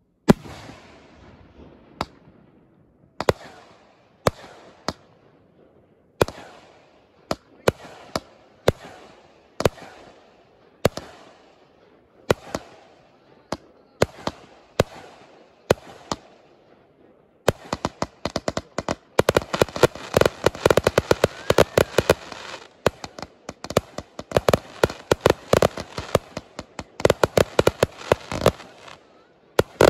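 Aerial fireworks: single shells bursting with sharp bangs about once a second, each trailing off in a rolling echo. After about seventeen seconds comes a dense, rapid barrage of bangs for about ten seconds, then a couple more single bangs.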